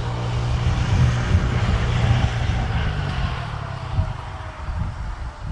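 WDP-4D diesel-electric locomotive's turbocharged EMD two-stroke V16 engine running hard as it hauls a passenger train away from a station, a steady deep drone with a higher whine that slowly falls in pitch.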